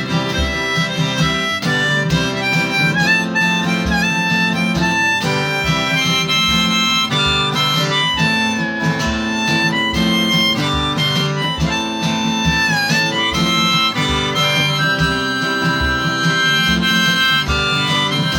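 Instrumental break of a song: a harmonica plays the melody, bending some notes, over guitar and a steady bass beat.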